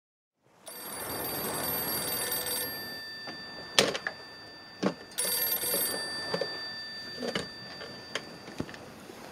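Telephone ringing twice, each ring about two seconds long with a pause of about two and a half seconds between them. A few sharp knocks fall between and after the rings, the loudest a little before halfway.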